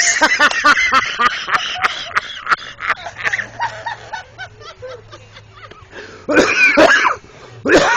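People laughing hard in rapid bursts, fading after about three seconds, with two loud outbursts near the end.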